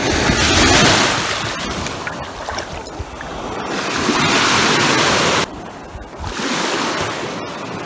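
Small waves washing in over a pebbly shoreline at the water's edge, the wash swelling and easing. It drops away suddenly about five and a half seconds in.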